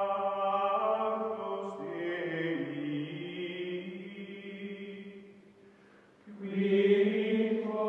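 Music: a choir-like chant of long held chords, changing chord about two seconds in, fading almost out around six seconds, then swelling back loudly near the end.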